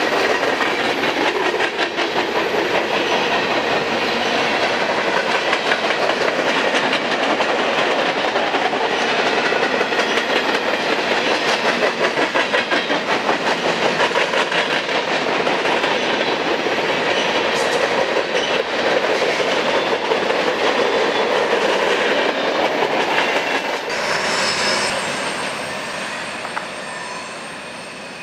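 Freight train's covered hopper cars rolling past close by: a steady rumble of steel wheels on rail with a rhythmic clickety-clack over the rail joints. About 24 s in, the sound changes and fades away.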